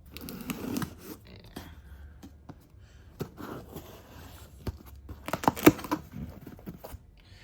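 A folding knife slicing through packing tape, and the package being torn and pulled open with rustling and scraping. A quick cluster of sharp clicks and scrapes about five and a half seconds in is the loudest part.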